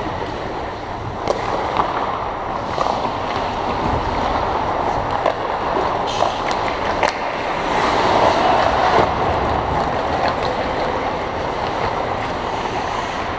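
Ice hockey play heard at rink level: a steady rushing rink hum with skate blades scraping across the ice and scattered sharp clacks of sticks and puck.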